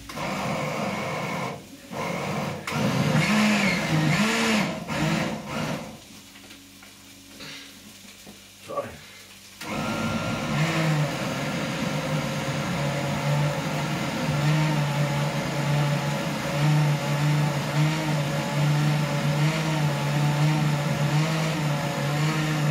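Countertop blender motor puréeing cooked vegetables for soup (red peppers, onions, garlic, chili). It runs for about six seconds with its pitch wavering, stops for a few seconds apart from a brief blip, then runs steadily for the rest.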